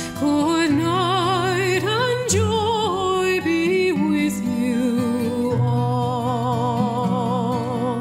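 Background music: a melody sung or played with a wide vibrato over held bass notes.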